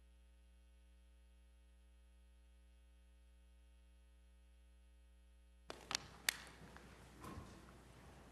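Near silence with a faint steady electrical hum; about two thirds of the way in, room sound comes back abruptly with two sharp knocks and scattered clicks of a Bible and water bottle being gathered up from a pulpit by its microphone.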